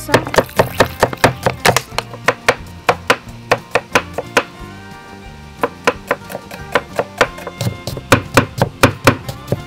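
Knife chopping shallots on a wooden cutting board: quick, sharp strikes about three to four a second, with a short pause about halfway through, over background guitar music.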